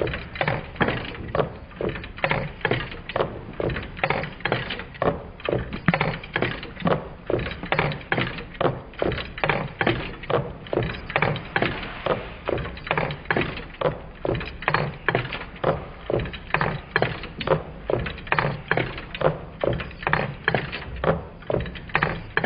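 Twin-cylinder Meccano Stirling engine running, its displacers knocking as they land at each end of their travel: a steady, even rhythm of sharp clicks, about two a second.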